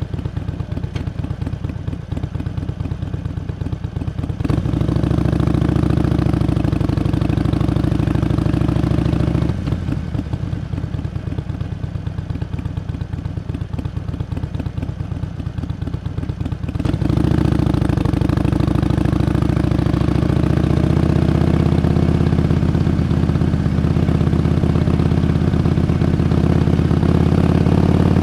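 Harley-Davidson Iron 883's air-cooled V-twin running as the bike is ridden. The throttle opens about four seconds in and closes again near ten seconds. It opens once more around seventeen seconds, and the revs climb slowly toward the end.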